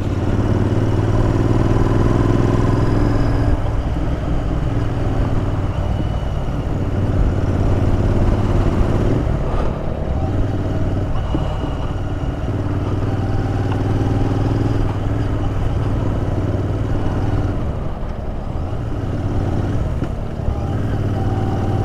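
Royal Enfield Interceptor 650's 648 cc parallel-twin engine running at a steady cruising speed, with wind and road noise. The engine note eases slightly now and then.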